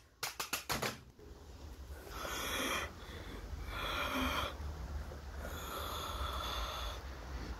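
A quick run of about six clicks in the first second, then a person making three long, breathy gasps about a second and a half apart.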